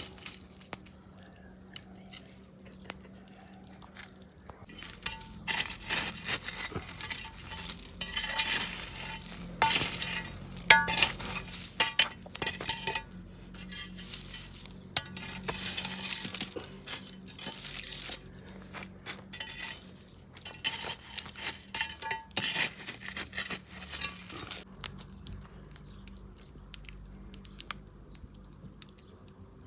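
Cutlery and dishes clinking and scraping in irregular bursts, starting about five seconds in and dying away near the end.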